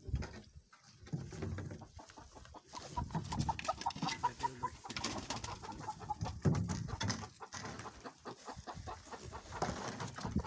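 Kuroiler chickens clucking, with a quick run of short, evenly spaced calls a few seconds in.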